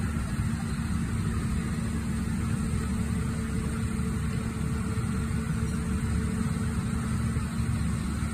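Diesel engine of a Kato HD1430V excavator running steadily, a constant low engine sound with no changes in speed.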